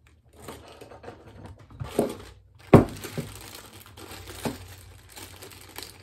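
Small clear plastic bag of metal stamping letters crinkling as it is opened and handled, with a few sharp knocks, the loudest a little before halfway through.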